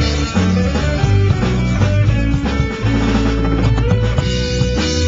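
Live band playing: hollow-body electric guitar over a drum kit, with sharp drum strikes throughout and sustained low notes underneath.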